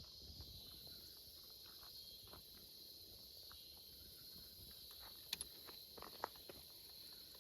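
Faint, steady high-pitched chorus of crickets and other insects, with scattered soft clicks and a few sharper ticks between about five and six and a half seconds in.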